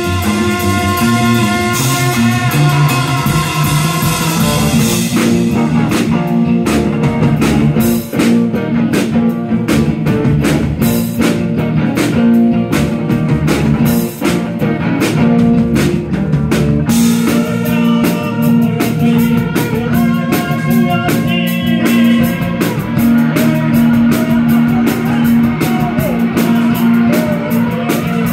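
Live instrumental rock played by a trio on electric bass, drum kit and electric guitar. Sustained guitar tones open it, and the drumming grows busier about five seconds in.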